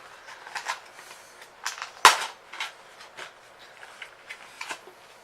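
Plastic toy packaging crackling and snapping as it is pulled open by hand, with one loud snap about two seconds in.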